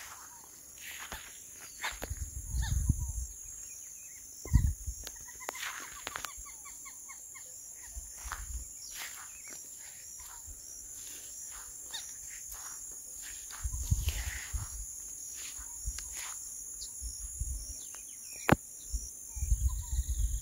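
Rural outdoor ambience: insects buzzing steadily at a high pitch, with many short bird chirps over it. Several low rumbles come and go, the loudest about two to three seconds in, near fourteen seconds and at the very end.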